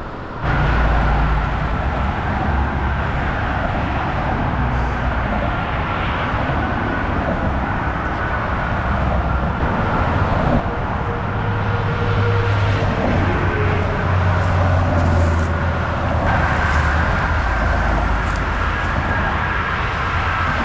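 Steady road traffic noise: a continuous rumble of passing vehicles with a faint tyre whine, starting abruptly about half a second in.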